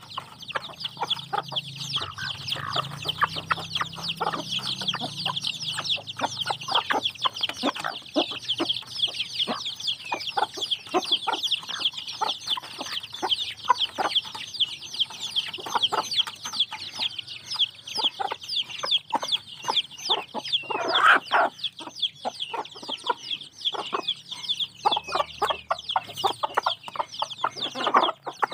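A brood of kampung chicks, nearly a month old, peeping continuously in a dense chorus of short, high, falling cheeps as they feed. A mother hen gives a few louder, lower clucks, once about two-thirds through and again near the end.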